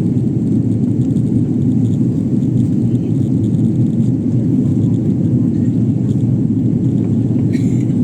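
Steady low rumble of an airliner's cabin, the drone of engine and airflow noise unchanging throughout.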